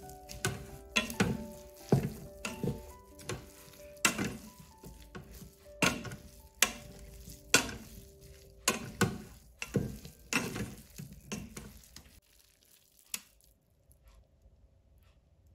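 Wooden spatula stirring cooked sticky rice and peanuts in a pressure cooker's metal inner pot, with sharp scrapes and knocks against the pot at an irregular pace of about one or two a second, stopping about twelve seconds in. Soft background music with held notes plays underneath throughout.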